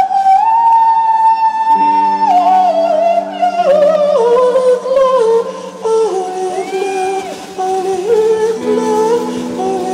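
Live indie rock band playing: electric guitars, bass and drums, with a high, sliding melody line held over sustained guitar chords that come in about two seconds in.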